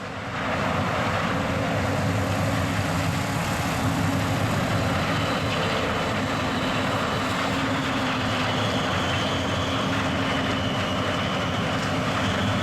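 Heavy harvest machinery running steadily at work, a continuous engine and machine drone with a faint steady high whine over it.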